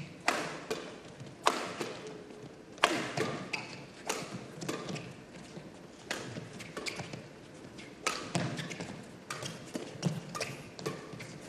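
Doubles badminton rally: a quick, irregular series of sharp racket hits on the shuttlecock, about a dozen, with thuds of the players' footwork on the court.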